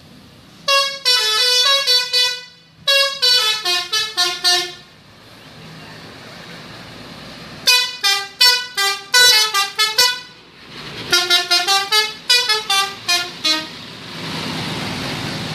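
Tour coach's telolet musical horn playing a quick multi-note tune in four phrases, pausing between them. Near the end a steady hiss follows as the coach goes by.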